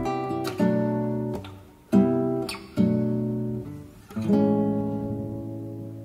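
Background music: an acoustic guitar strumming chords, each strum struck sharply and left to ring and fade, the last one held and slowly dying away.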